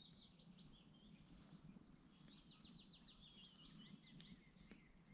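Near silence with faint bird song: a short, fast, high trill at the start and another about two seconds in.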